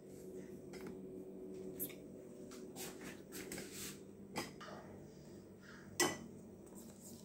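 Chopsticks stirring dry flour in a glass mixing bowl, with scattered clicks as the sticks knock against the glass, the loudest about six seconds in, over a steady low hum.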